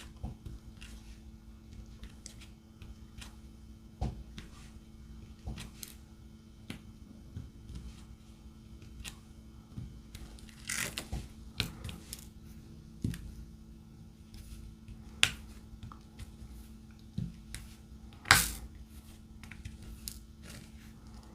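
Irregular small clicks and taps of a diamond painting pen picking up resin drills and pressing them onto the canvas, a few sharper than the rest, over a faint steady hum.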